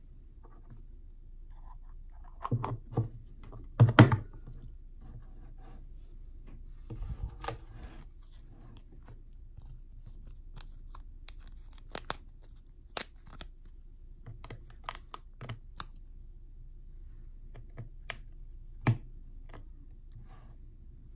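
Small hard plastic toy pieces being handled: scattered sharp clicks and taps, with a few louder knocks about three seconds in and a brief rustle around seven seconds.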